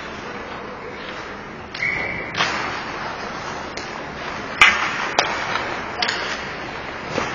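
Ice hockey play: skate blades scraping the ice over a steady rink hum, broken by sharp clacks of sticks and puck, the loudest two cracks about halfway through.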